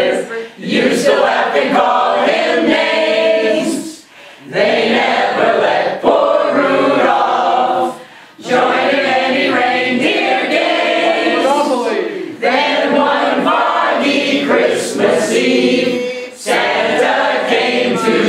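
A large mixed group of adults singing together like an informal choir, in sung phrases of about four seconds with short breaks between them.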